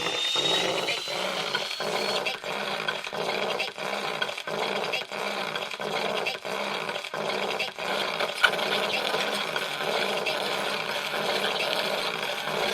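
Abstract experimental noise music built from manipulated vinyl: a dense grinding, machine-like texture broken by short regular gaps about every two-thirds of a second, with a high whistling tone rising over the first two seconds.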